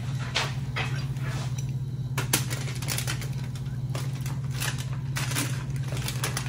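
A fork scraping and clicking against aluminium foil in an air fryer basket, an irregular run of short clicks and rustles over a steady low hum.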